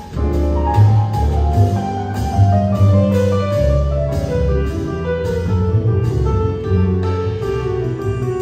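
Jazz piano trio playing live: grand piano over upright double bass and drums, with a steady cymbal beat and a piano line stepping downward in pitch.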